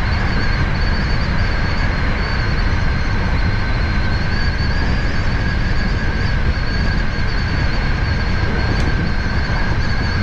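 Hankyu 7000-series electric train running along the line, heard from just behind the driver's cab: a steady rumble of wheels on the rails with a constant high ringing tone over it.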